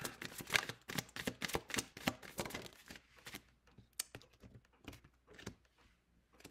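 Tarot deck shuffled by hand: a quick run of soft card clicks and flicks for about three seconds, then sparser clicks as cards are pulled from the deck.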